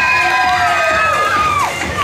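A crowd of children cheering and shrieking, many high-pitched voices overlapping, one scream sliding down in pitch near the end.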